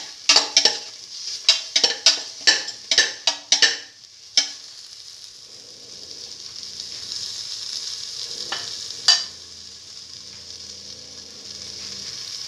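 A spatula scrapes and stirs shallots, tomato, fenugreek leaves and dried red chillies frying in oil in a stainless steel pan: a run of quick scrapes, about three a second, for the first four seconds. Then a steady sizzle, with two more scrapes a little after halfway.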